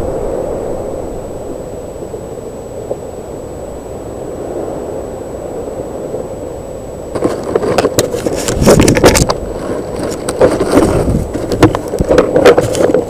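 Steady wind noise on a trail camera's built-in microphone in hurricane winds. From about seven seconds in, loud irregular knocks, scrapes and crackling come from right at the camera as something brushes against it.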